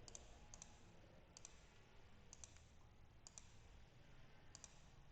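Faint, scattered clicks of a computer mouse, about six of them spread over a few seconds, several heard as a quick double click, over a low room hum.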